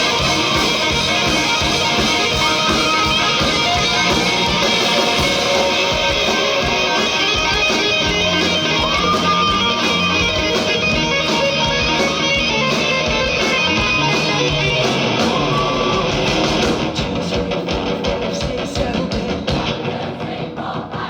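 Live rock band playing: electric guitars over drums, loud and dense, with the sound thinning out and dropping slightly in level near the end.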